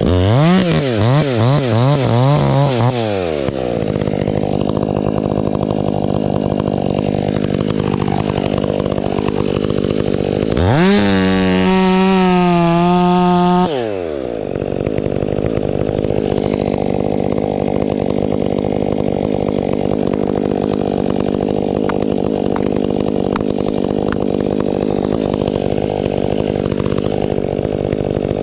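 Stihl 500i fuel-injected two-stroke chainsaw blipped up and down in quick throttle revs, then idling. Near the middle it is run at full throttle for about three seconds, then drops back to a steady idle.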